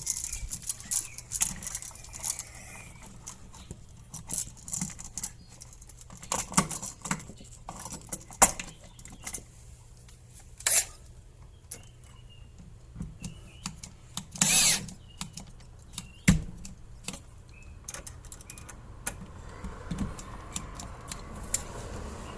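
Irregular small metallic clicks, taps and knocks of wired electrical outlets, screws and wires being handled and pushed back into an electrical box, with one brief louder rasping burst about two-thirds of the way through.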